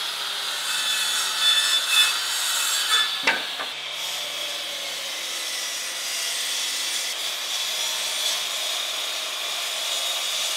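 Power saws cutting through a four-quarter cherry board: a handheld circular saw at first, then, after a break about three seconds in, a miter saw running with a steady high whine as it cuts across the board.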